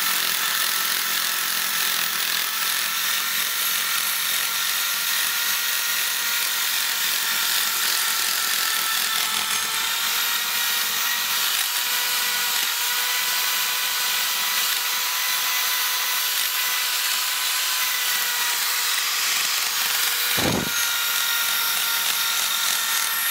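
Corded electric drill running steadily with a small wheel in its chuck, scuffing the bare cast aluminium of an intake manifold to prep it for wrinkle paint. The motor whines at an even pitch over the hiss of the wheel on the metal, with one brief knock about twenty seconds in.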